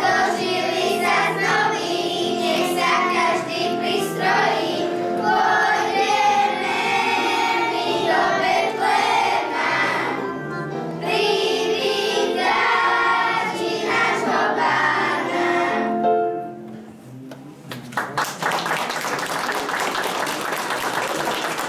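Group of children singing a Christmas carol together in phrases; the song ends about 16 seconds in. About two seconds later the audience starts applauding.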